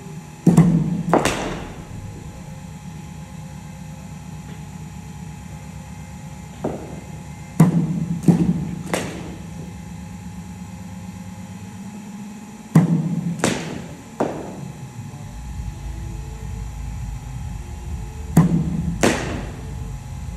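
Kashmir willow cricket bat striking practice balls in the nets: sharp knocks in quick pairs or threes, each cluster about five seconds apart, over a steady low hum.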